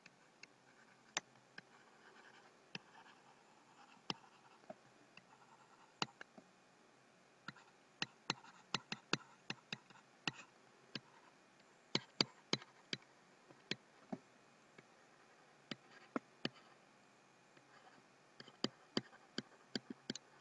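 Stylus writing on a pen tablet: faint scratching with irregular sharp taps and clicks, thickest in the middle of the stretch.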